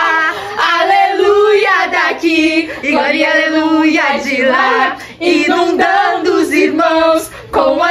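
Female voices singing a melody in sustained, wavering phrases, with a few short breaks between lines.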